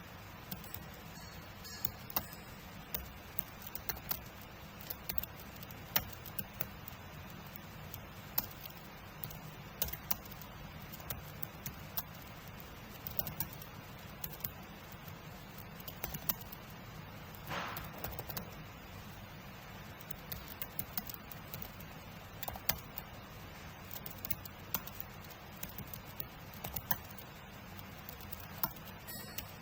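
Typing on a computer keyboard: irregular quick key clicks, a few a second, with brief pauses between runs.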